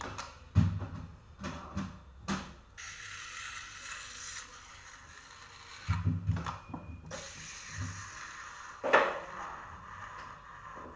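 Cake turntable being spun by hand with a mechanical clatter, and a scraper scraping as it smooths cream on the cake. There are several sharp knocks in the first few seconds and one loud knock about nine seconds in.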